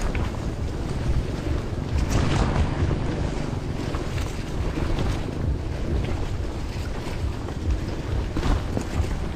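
Wind buffeting the microphone in a continuous low rumble while a bicycle rolls over a wet, stony dirt track: the crunch of Panaracer Gravel King SK gravel tyres on stones and mud, with a few sharp clicks where stones are struck.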